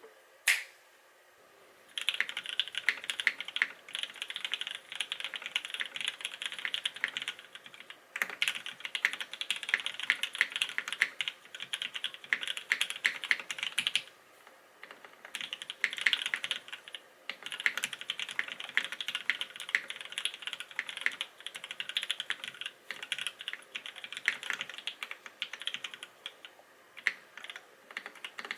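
Typing on a Smith + Rune Iron165 SE mechanical keyboard with lubed Gateron Black Ink linear switches, a carbon fiber plate and GMK Space Cadet keycaps. A single sharp click comes about half a second in. From about two seconds in there are runs of rapid keystrokes, with brief pauses twice.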